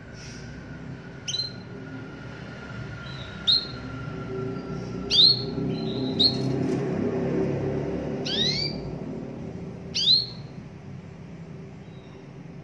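Domestic canary giving short, rising 'cuit' call notes, about six of them spaced a second or two apart, over a steady low background rumble.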